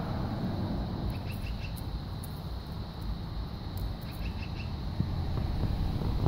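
Outdoor ambience: a steady low rumble with a few faint, short bird chirps in the background.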